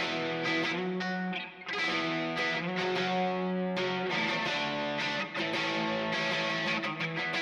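Gibson ES-339 electric guitar with '57 Classic humbuckers, played on the bridge pickup through an overdriven Kemper amp profile. Chords are struck again and again and left to ring, with a short gap about one and a half seconds in.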